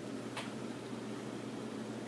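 Steady faint background hiss of a small room, with one short click a little under half a second in.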